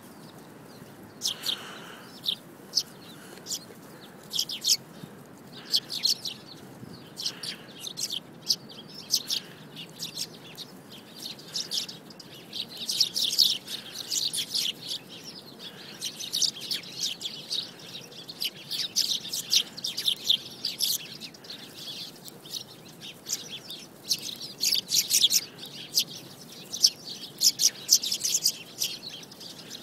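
Sparrow chirping: many short, high chirps in quick runs, busiest about halfway through and again near the end.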